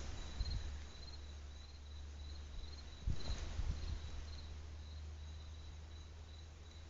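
Cricket chirping, a thin high tone pulsing evenly about twice a second, over a steady low rumble, with a single soft knock about three seconds in.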